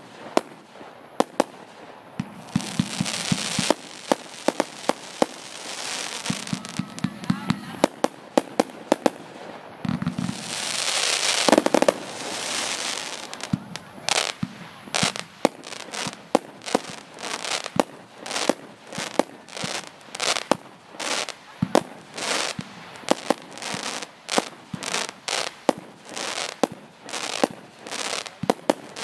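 Consumer firework battery (cake) firing: a string of sharp launch shots and bursting reports, with stretches of hissing and crackle. From about halfway the shots come evenly, about two a second, each followed by a short hiss.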